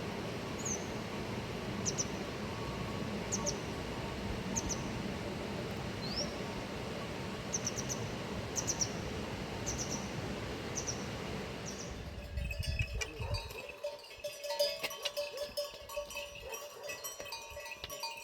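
A steady rushing noise with a string of short high chirps, like small birds, over it. About two-thirds through it gives way to a goat and sheep flock: animal bells clinking and clattering, with a few held tones among them.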